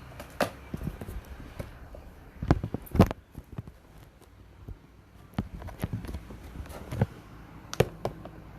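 Irregular knocks and clicks from handling objects, the loudest two about two and a half and three seconds in, and another sharp one near the end.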